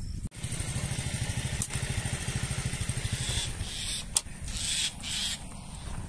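An engine running with a steady, rapid low putter that fades after about three and a half seconds, with two sharp clicks.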